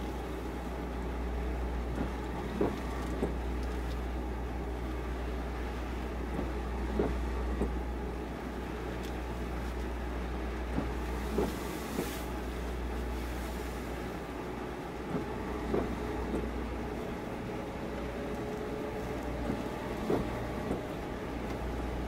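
Harbour ambience beside moored fishing boats: a steady low rumble with a haze of noise, and short light knocks every second or few.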